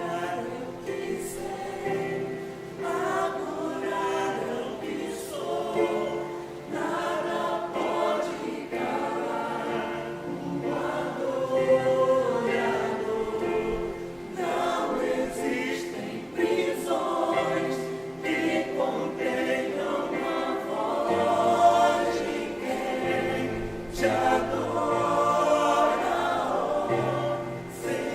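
Church choir singing a hymn in phrases, over a steady held accompaniment note.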